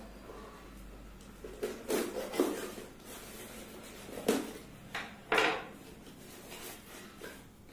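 A cardboard shipping package being opened and handled by hand: a few short, sharp handling noises about two seconds in, and again from about four to five and a half seconds, the last one the loudest.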